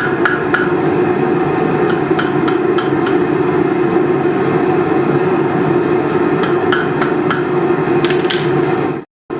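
Hand hammer striking hot steel on an anvil in short groups of light blows, over the steady roar of a running forge.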